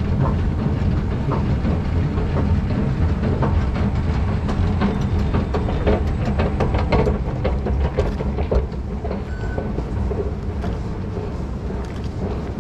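Station escalator running with a steady low rumble and a rapid clatter of clicks from the moving steps near the top landing; the rumble drops off about two-thirds of the way through, after stepping off.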